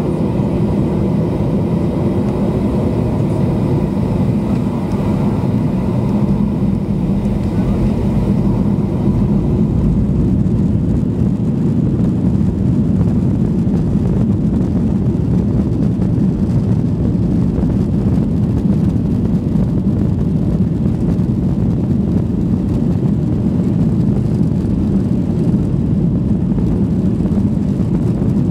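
Boeing 737 jet engines and the wheels' runway rumble, heard from inside the cabin over the wing as the airliner rolls for takeoff. A whine with several steady tones sounds for the first several seconds, then gives way to a steady, louder rush.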